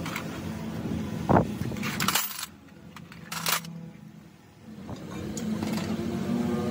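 A few sharp metal clinks and knocks, with a short scrape, from tools and engine parts being handled, then a steady low hum.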